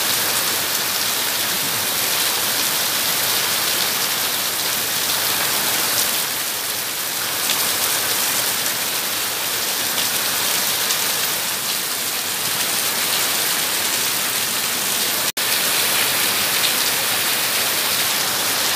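Heavy rain pouring steadily onto paved ground, an even hiss of water. The sound drops out for an instant about fifteen seconds in.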